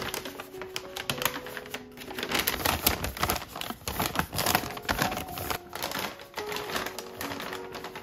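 Kraft paper bags being folded and creased by hand: dense crisp crinkling and rustling of stiff paper, over soft background music.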